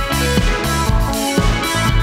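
Band music with a steady beat: a synthesizer keyboard part over bass guitar and drums.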